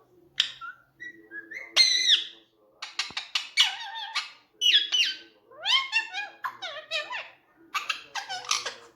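Indian ringneck parakeet chattering: a quick run of squeaky whistles and rising chirps, broken by a few sharp clicks.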